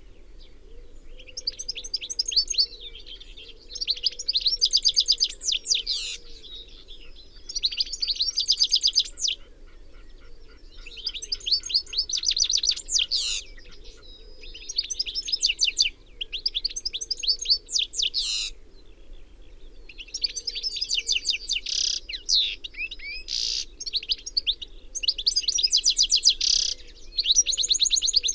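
European goldfinch singing: phrases of rapid twittering a second or two long, repeated with short pauses between them.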